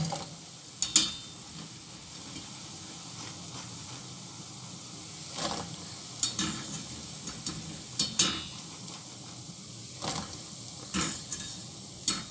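Hot oil sizzling steadily as zalabia dough balls deep-fry in a pan, with a series of short metallic clinks from a wire skimmer knocking against the stainless steel pots as the fried balls are scooped out and tipped into syrup.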